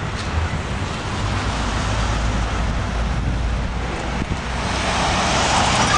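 New York City subway D train running at the station: a steady low rumble, with a louder, higher-pitched noise swelling near the end.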